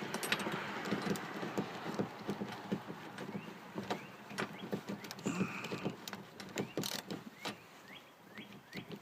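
Plastic interior trim handle being fitted back onto a minivan's rear liftgate by hand: irregular clicks, taps and light rattles of plastic parts, with a few small squeaks.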